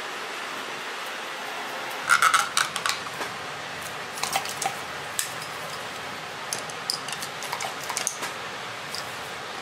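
Plastic cupping cups and a hand pump gun clicking and clattering as the cups are fitted and pumped onto a back: a cluster of sharp clicks about two seconds in, then scattered lighter clicks, over a steady hiss.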